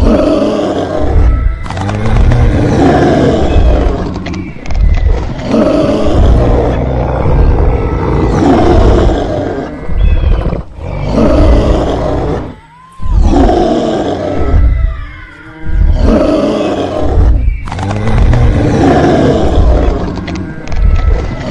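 Dinosaur roar sound effects, loud and rough, one after another every two to three seconds.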